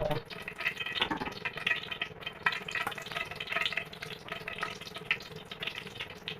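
Kitchen cooking sounds: water or liquid being handled, with irregular clinks and clatters.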